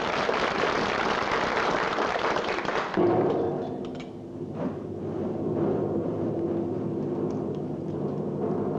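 Stage-band accompaniment for a variety act. A loud, even wash of noise lasts about three seconds, then the band holds sustained chords.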